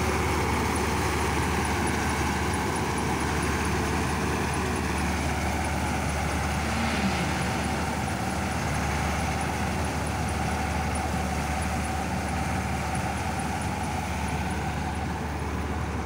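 Malkit self-propelled combine harvester working in paddy: its engine and threshing machinery give a steady, loud drone with a strong low hum.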